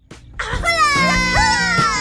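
Background music that starts about half a second in after a brief silence, led by a high, many-toned sound that slides slowly down in pitch over steady low notes.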